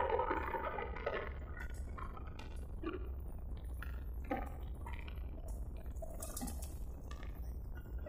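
Motorcycle engine running with a steady low hum, with faint scattered clicks and clinks over it.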